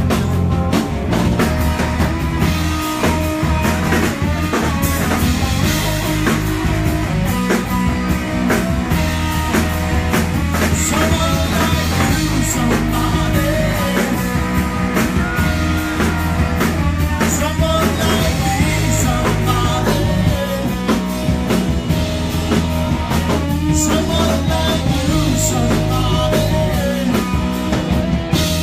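Live rock band playing: drum kit, guitars and a bass line in held notes, with a singer.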